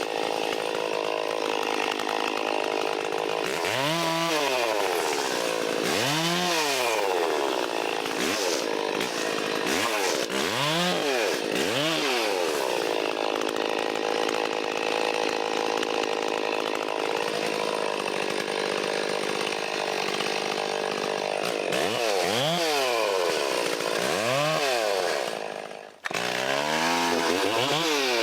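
Vintage Stihl 034 two-stroke chainsaw cutting wood: steady stretches under load, with the engine revving up and back down again several times between cuts.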